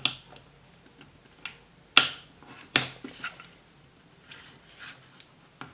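Knife blade cutting and prying at the thick heat-shrink sleeve of an LED driver: a series of sharp clicks and snaps, the loudest about two and three seconds in.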